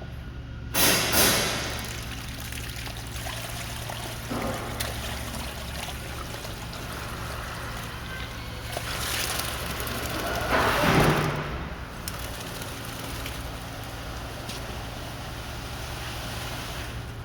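Concrete pump running with a steady low hum as wet concrete pours and sloshes, with a louder rushing surge about ten seconds in.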